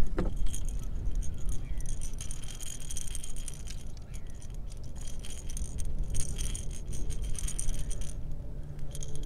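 Rapid metallic clicking and rattling of fishing tackle as a big bait is let out behind a kayak, over a low rumble of wind and water.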